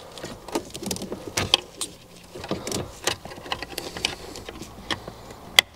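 Irregular plastic clicks and taps of a wiring-harness connector being handled and fitted onto the back of a car head unit, with a sharper click near the end.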